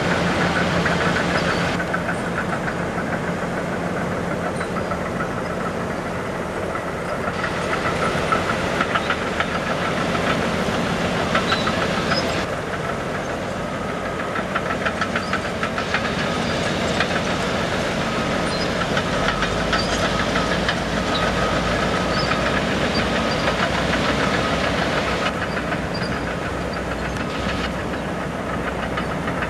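Diesel engine of a Caterpillar motor grader running steadily, with a fast, fine clatter, over a hiss of rushing river water.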